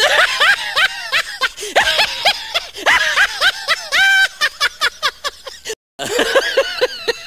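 High-pitched laughter sound effect: quick giggling syllables, one drawn-out note in the middle. It cuts off abruptly near the end and a second laugh begins.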